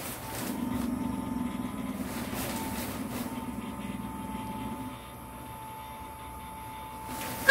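Steady whir of an inflatable dinosaur costume's built-in blower fan, with a thin steady hum, fuller and louder for the first few seconds and then dropping back.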